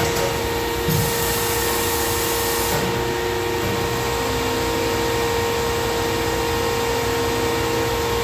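Pines 075 CNC tube bender running a bend cycle: its hydraulic power unit gives a steady whine and hum as the bend arm swings. A hiss like air venting comes in about a second in and stops near three seconds.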